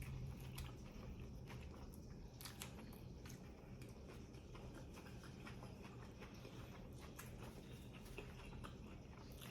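Faint chewing of a grinder sandwich, heard as soft, irregular small clicks and smacks.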